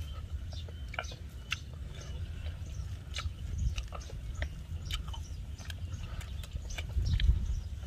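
Close eating sounds: chewing and mouth smacks with small irregular clicks as grilled fish is picked apart by hand and eaten, over a steady low rumble that swells briefly near the end.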